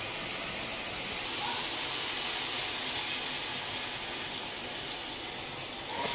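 Steady frying sizzle from a kadai of okra and tomatoes on a gas burner, swelling a little about a second in as soaked tamarind water is poured into the hot pan.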